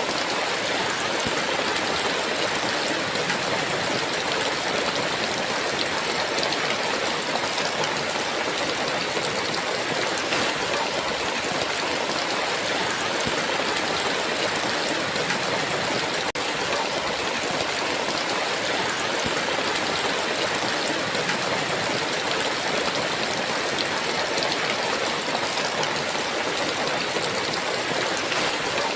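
Heavy rain falling steadily, a dense even hiss without letup.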